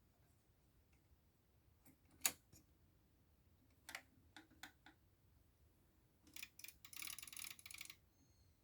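Old Torpedo manual typewriter clacking: a few separate key strikes, the loudest a couple of seconds in, then a quick cluster of clicks and a rattling run of about a second near the end.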